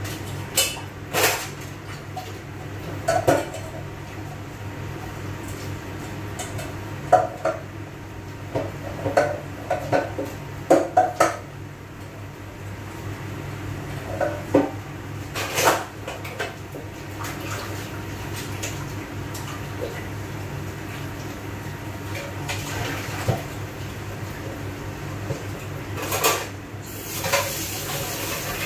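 Dishes and cutlery being handled at a kitchen sink: scattered clinks, clatters and knocks over a steady low hum. A hiss starts near the end.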